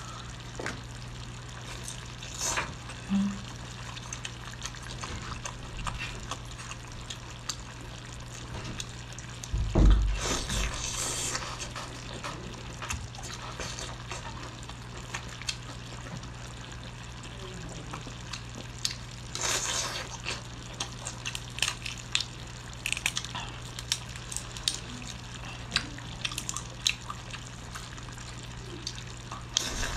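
Wet squelching and cracking of a king tiger prawn being peeled by hand in sauce, with chewing and many small clicks. A loud thump comes about ten seconds in.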